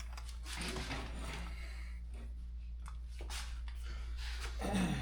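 Handling noise from metal parts of a Honda FL350 Odyssey being shifted and worked loose on its frame: scattered scrapes and light knocks over a steady low hum, with a louder low sound near the end.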